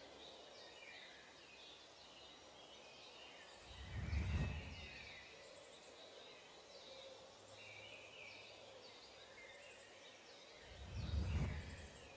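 Background nature ambience of many small birds chirping. Two low whooshes swell up and fade, about four seconds in and again near the end.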